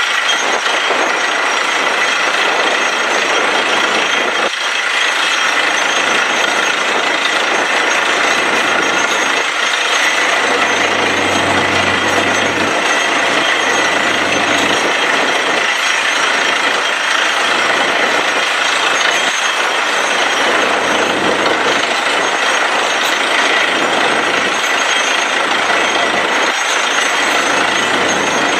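Truck-mounted borewell drilling rig drilling a water well: a loud, steady mechanical din of the rig running, with rock cuttings and water spraying out of the hole.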